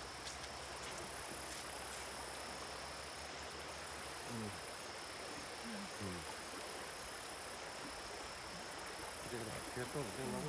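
Shallow river water rushing over a rocky riffle, a steady hiss, with insects trilling high above it.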